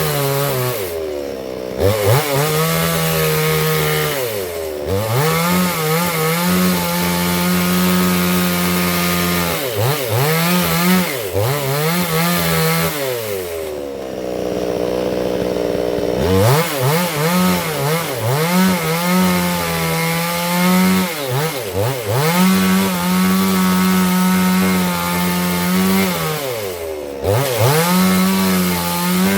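Two-stroke chainsaw running at high revs as it rips a log lengthwise in a vertical chainsaw mill. The engine pitch dips and recovers several times, and about halfway through it falls back near idle for a couple of seconds before revving up into the cut again.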